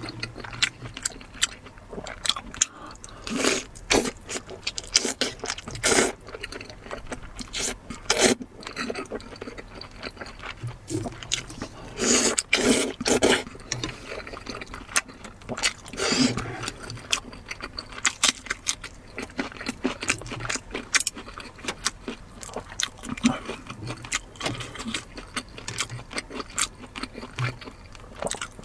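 Close-miked eating sounds: irregular wet chewing, biting and small clicks of food and utensils, with a few louder bursts of activity.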